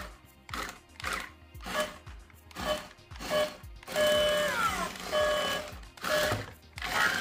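Background music with a steady beat and electronic tones, including a pair of falling tones about four seconds in, over the whir of a building-block toy robot's small electric motors as it drives and turns on its rubber tracks.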